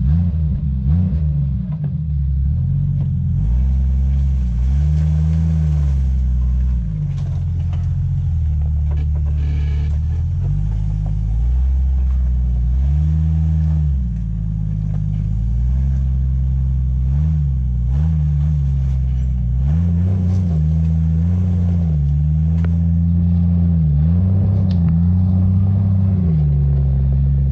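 Jeep engine running under load off-road, its revs rising and falling over and over in short swells as it works over the trail.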